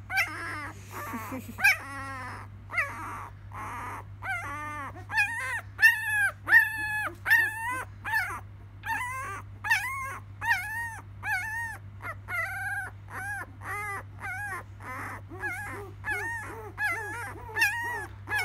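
Twelve-day-old Labrador Retriever puppy crying in short, high, arching whimpers. They come a few at a time at first, then about two a second from some four seconds in.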